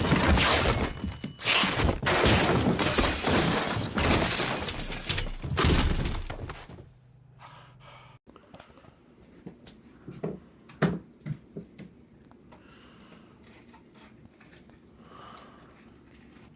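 Loud, dense crashing and clattering noise for about six and a half seconds, then much quieter with a few faint knocks.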